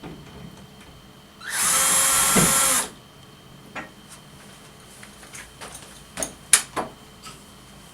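Power drill running in one burst of just over a second at a steady pitch, then a few light clicks and knocks as the work is handled.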